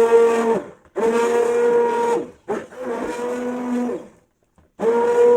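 Stick blender running in short pulses of a little over a second each with brief stops between, a steady motor hum, mixing a batch of homemade hair conditioner.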